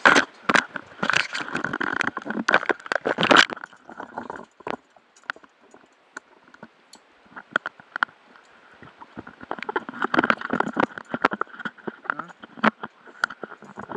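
Handling noise on a head-mounted underwater camera: rapid clicks, knocks and rubbing of scuba gear and mask strap against the camera, dense for the first few seconds, sparse clicks in the middle, then another flurry about ten seconds in.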